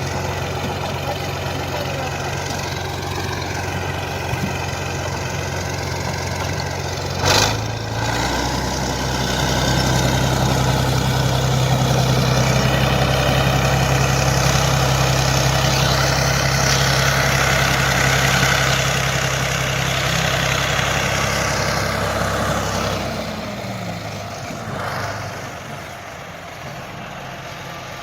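Heavy diesel engine of a Soviet bulldozer running steadily, with one sharp knock about seven seconds in. The engine then runs louder for about a dozen seconds before dropping back, lower and quieter, near the end.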